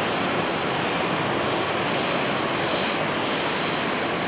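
Jet aircraft engines at an airport: a steady, even rushing noise with a high hiss on top, unchanging throughout.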